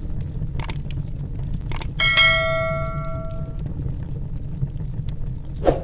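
Notification bell chime sound effect about two seconds in, ringing for over a second with several overtones, preceded by a couple of sharp clicks. A steady low crackling fire rumble runs underneath.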